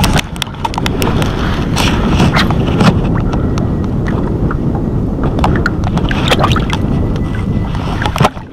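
Water splashing and sloshing at the side of a boat as a hand holds a caught fish in the water and releases it, with many small splashes and drips. Heavy wind rumble on the microphone runs underneath.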